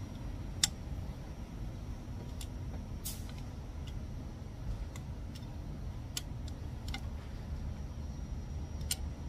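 Scattered sharp metallic clicks from a long-handled wrench and socket turning the cylinder head bolts, about ten irregular clicks with the loudest near the start, over a steady low rumble.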